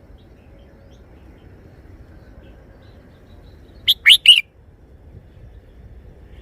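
Red-whiskered bulbul singing its three-syllable song: one short phrase of three quick, loud notes about four seconds in.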